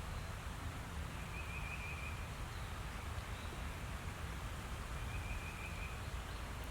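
Woodland ambience: a steady low rumble, with a bird giving a short high trill twice, about a second in and again near the end.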